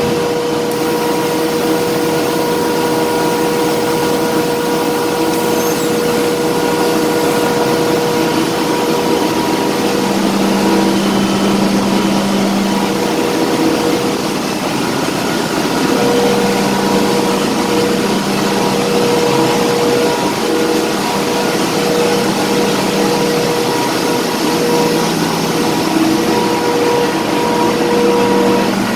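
Ship's engine-room machinery running loud and steady, with the Aalborg auxiliary boiler's burner firing: a dense noise carrying a few steady hums, a lower hum dropping in and out several times.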